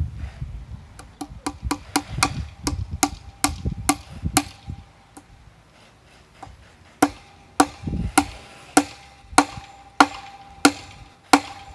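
Hammer driving wire tacks through welded wire fence into a wooden post. First comes a quick run of lighter taps. After a pause of about two seconds come about eight heavier, evenly spaced blows with a ringing note.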